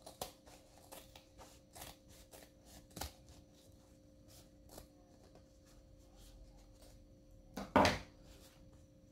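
Scissors snipping through fabric in a string of small, irregular cuts, trimming away the excess seam edge. A louder knock near the end as the scissors are set down on the table.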